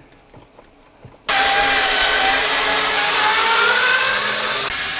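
A few faint clicks, then about a second in a small cordless screwdriver starts and runs steadily with a wavering whine, driving screws into a metal drawer slide.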